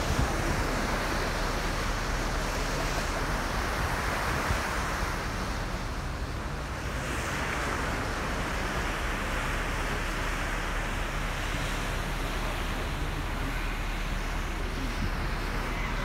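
Sea water churning and rushing along a moving ferry's hull, swelling and easing every few seconds, with wind rumbling on the microphone.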